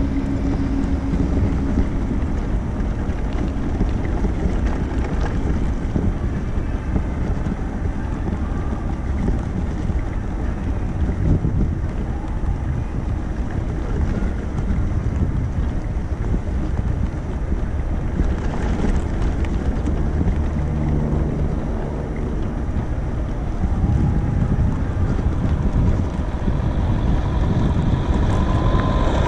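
Steady wind rushing over the microphone while riding on an electric wheelchair bike attachment, over a low rumble from the moving handbike; faint tones come and go, one rising gently near the end.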